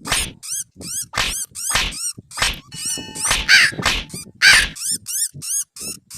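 A rapid run of short, high-pitched animal cries, about three to four a second, as if from a sound-effect track.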